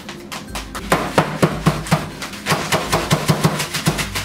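Rapid, evenly spaced knocks, several a second, as a lump of hardened brown sugar is broken up at the counter.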